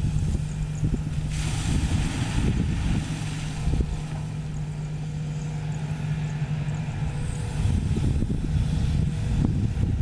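Sany SY215C excavator's diesel engine running steadily with a constant low hum and rumble. A brief hiss rises over it about a second and a half in.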